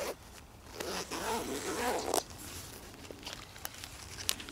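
Zipper of a Maxpedition nylon pouch being pulled open around the pouch in one run lasting about a second and a half, followed by a few light clicks as the open pouch is handled.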